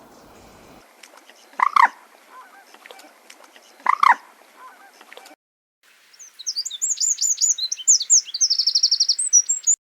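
Two loud, short honking calls from a waterbird, about two seconds apart. Then a small songbird sings a fast run of high notes ending in a rapid trill.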